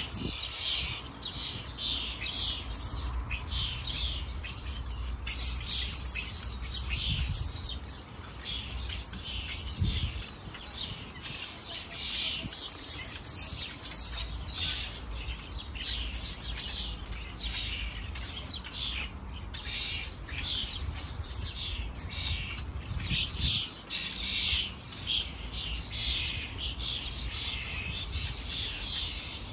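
Many birds chirping and calling continuously, a dense stream of short falling notes with no break.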